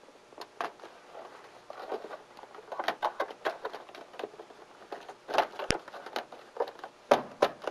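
Sheet-metal roofing parts being worked: a snap-on batten fitted over a metal roof panel's seam, giving irregular light clicks, taps and crinkles, with one sharp snap about five and a half seconds in.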